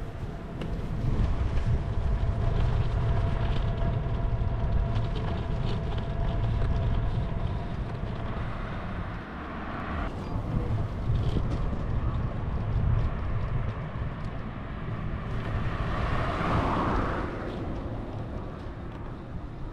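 Riding noise from a bicycle ride: a steady low rumble of wind and road noise, with a louder rushing swell about sixteen seconds in.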